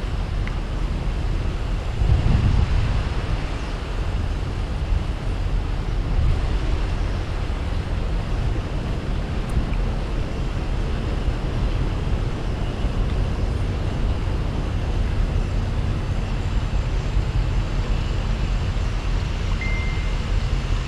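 Steady vehicle and road noise, a low rumble with no clear rhythm, and a brief high tone near the end.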